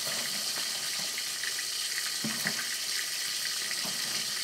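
Steady hiss of food sizzling in a pan on a wood-burning tent stove, with a few faint ticks and crackles.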